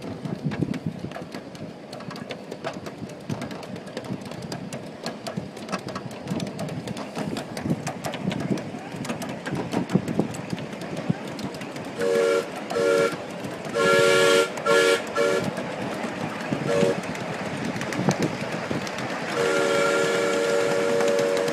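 Ride-on live-steam miniature locomotive running along the track with a steady clatter, its chime whistle sounding several notes at once: a series of short toots about halfway through, then one long blast near the end.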